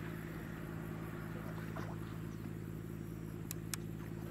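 A low, steady engine drone. Two sharp clicks close together come about three and a half seconds in.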